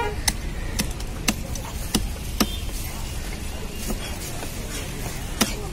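A heavy cleaver chopping seer fish (vanjaram) on a wooden log block: five sharp knocks about half a second apart, then one more near the end, over a steady low background rumble.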